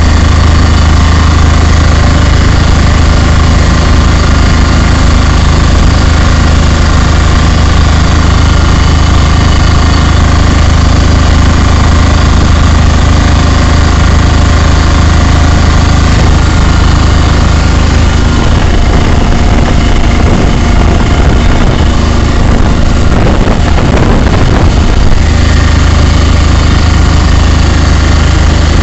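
Vehicle engine running steadily under way, heard loud from inside the cab together with road noise. Its deep drone eases and shifts for several seconds past the middle, then comes back.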